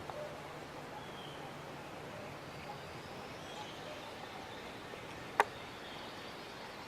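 Quiet spring woodland with faint, scattered songbird chirps and a steady background hiss; a single sharp click about five seconds in.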